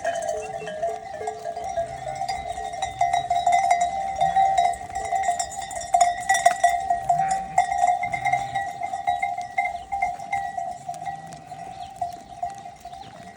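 Bells on a flock of merino sheep clinking and ringing on and on, with the odd low bleat.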